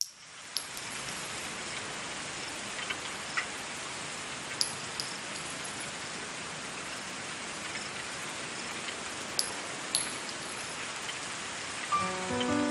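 Steady rain falling, an even hiss with a few sharper drip-like ticks now and then, used as the sound effect opening a song. Music notes come in near the end.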